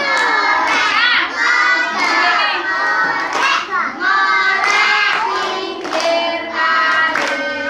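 A group of young children singing an Indonesian children's song together, with hand clapping.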